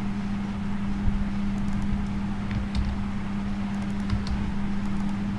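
Steady low electrical hum and rumble of recording background noise, with a few faint computer keyboard key clicks from about one and a half seconds in.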